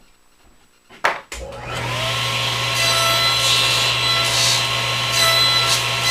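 Table saw switched on with a sharp click about a second in, its motor spinning up quickly and then running at speed with a steady hum and whine.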